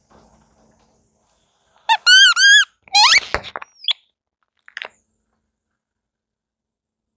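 Rubber ducks squeaking as a car tyre rolls over and squeezes them: three quick squeaks about two seconds in, then a longer rising squeak, followed by a few short, fainter squeaks.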